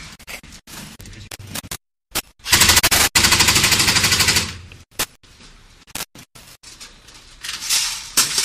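Rapid automatic gunfire: a single shot about two seconds in, then a fast burst of about two seconds at roughly fourteen rounds a second with a brief break in the middle. Scattered single sharp cracks follow.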